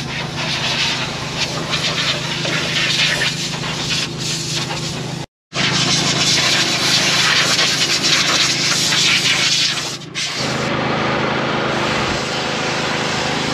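Compressed air hissing hard from an air-hose nozzle as a John Deere 4890 swather is blown clean of chaff, broken briefly about five seconds in. From about ten seconds in comes a smoother sound of fuel running from a pump nozzle into the swather's tank. A steady low hum runs underneath throughout.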